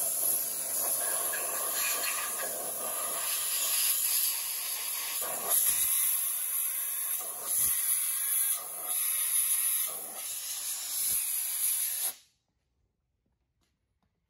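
Compressed-air blow gun spraying mineral spirits and air through the crankcase of a bare engine block: a loud, continuous hiss that dips and surges briefly several times, then cuts off sharply about twelve seconds in.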